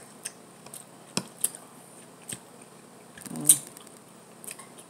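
Metal fork clicking and scraping against a glass plate while eating, in scattered light taps, with a louder click and a short hum about three and a half seconds in as a forkful goes into the mouth.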